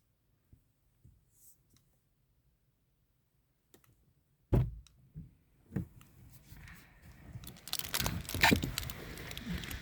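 Near silence with a few faint clicks, then a sharp thump about four and a half seconds in, a few more knocks, and a rising rush of noise with clattering clicks near the end.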